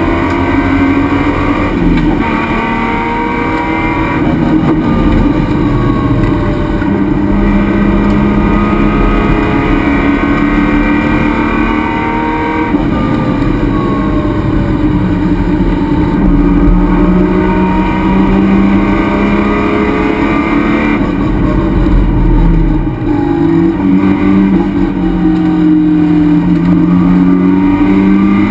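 Race car's engine heard from inside the stripped cockpit, revving up through the gears and falling back several times for shifts and braking into corners, over loud wind and road noise.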